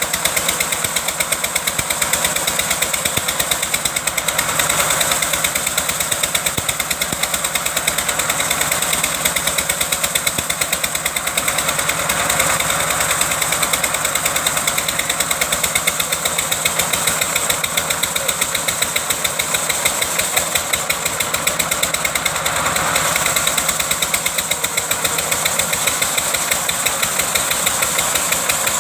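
Engine of a wood-cutting machine running steadily with a fast, regular knocking beat. It swells briefly a few times.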